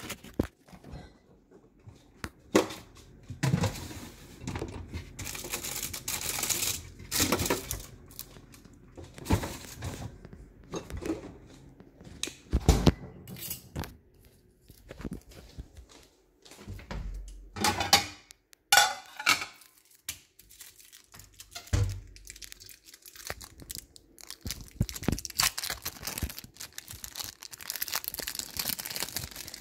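Irregular rustling and crinkling of things being handled close to the microphone, broken by occasional knocks, the sharpest about halfway through.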